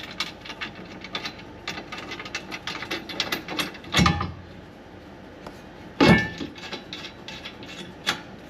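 Ratchet wrench clicking quickly and unevenly as it turns a skid plate bolt, then two heavy metallic knocks about two seconds apart and one more click near the end.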